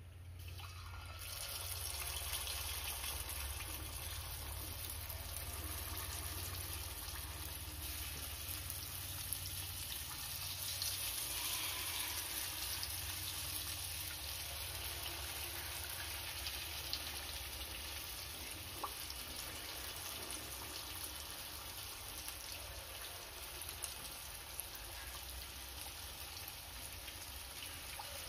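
Unniyappam batter sizzling and frying in hot oil in the wells of an aluminium unniyappam pan. It starts about a second in as the first spoonful goes into the oil and goes on steadily as more wells are filled.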